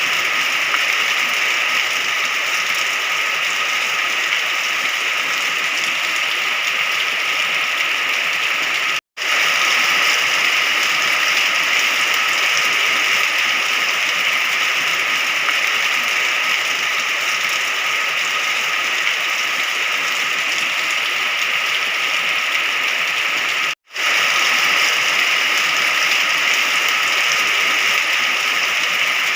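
Steady rain falling, an even hiss of countless drops. It cuts out to silence for a split second twice, about 9 seconds in and again about 24 seconds in.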